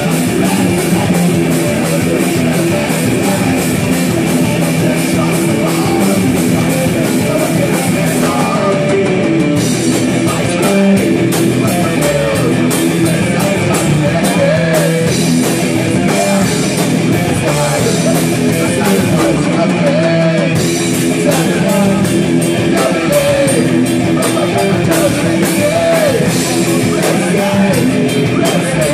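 Metal band playing live and loud: distorted electric guitar, bass guitar and a drum kit played with a fast, steady beat. The cymbals stop briefly twice.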